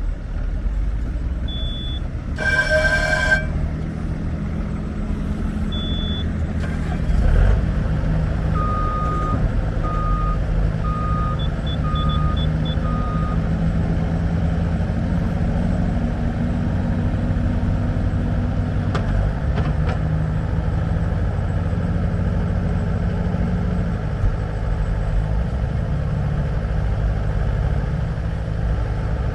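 Bobcat S250 skid steer loader's diesel engine running steadily throughout. About two and a half seconds in there is a loud honk-like tone lasting about a second, and a little later a string of short electronic beeps: a few single high beeps, then five evenly spaced lower beeps.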